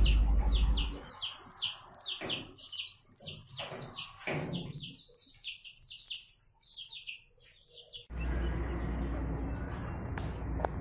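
Young chicks peeping: a quick, continuous run of short, high, falling chirps, several a second, with a few soft knocks among them. About eight seconds in the peeping cuts off and gives way to a steady low background noise.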